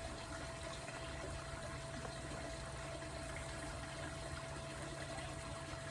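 Steady background hum and hiss, with a faint steady whine, like a water pump running; it does not change.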